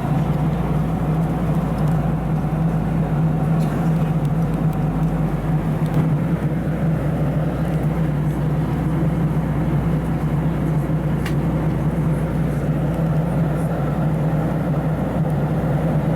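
Boeing 737-700 cabin noise in flight: a steady rush of airflow and engine noise with a constant low hum.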